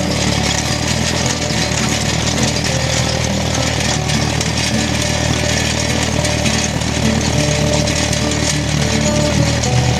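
Engine running steadily at an even speed, loud and mechanical.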